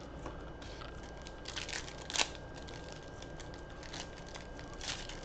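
Foil wrapper of a Panini Optic basketball card pack crinkling and tearing as it is opened, in a few short crackly bursts, the sharpest about two seconds in.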